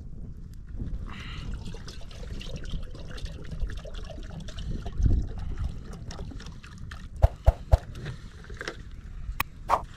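Water poured from a plastic jerrycan into a kettle, trickling and splashing steadily. A few sharp knocks come near the end.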